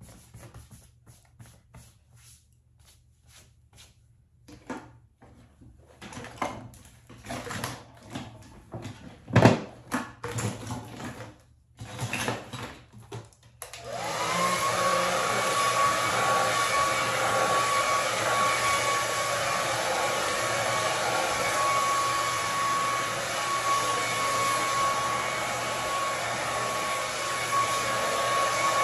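Scattered clicks, knocks and rustling of handling, then about halfway through a handheld hair dryer switches on and runs steadily, its motor whine rising briefly as it spins up over the rush of air.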